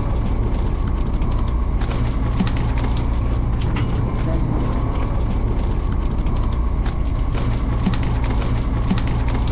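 Fishing boat's engine running steadily with a low, even drone, with irregular clicks and knocks over it.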